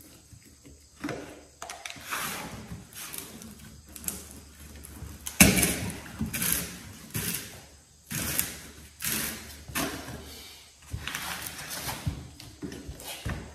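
Plastic bottles and a cardboard box being handled on a concrete floor: irregular knocks, scrapes and rustles, with one sharp knock about five seconds in, while two-part epoxy crack filler is measured into a squeeze bottle.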